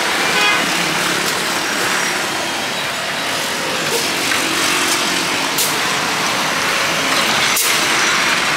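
Busy street traffic: motorbikes, cars and a truck running past, a steady rush of noise, with a few short clicks scattered through it.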